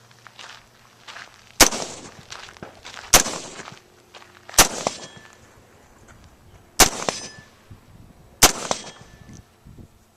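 Five single rifle shots fired at a steady, unhurried pace, about one every one and a half to two seconds.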